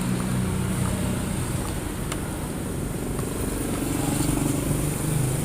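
Motor vehicle engines running as road traffic, a low engine hum that eases off about two seconds in and swells again near the end.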